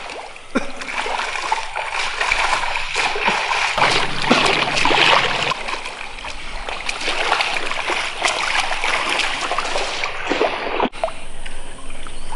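Splashing and sloshing in shallow muddy floodwater as a person's feet move and stamp through it, in many irregular splashes.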